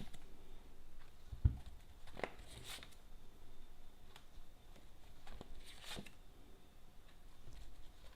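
Tarot cards being handled and laid down on a table: a few soft slides and taps, with one low thump about a second and a half in.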